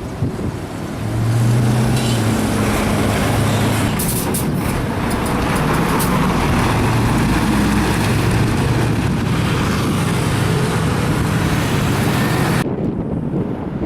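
Road traffic: a motor vehicle's engine running steadily, with wind noise on the microphone.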